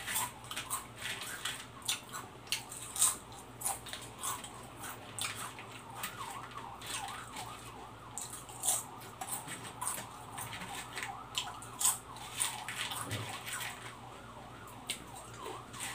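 Barbecue potato chips crunching as they are bitten and chewed, in sharp irregular crackles, with light rustling of chips in a plastic tray as they are picked up.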